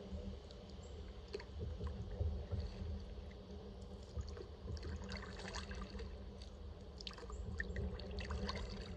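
Kayak paddling: small splashes and water dripping and trickling off the paddle blade, coming in several clusters a few seconds apart over a steady low rumble.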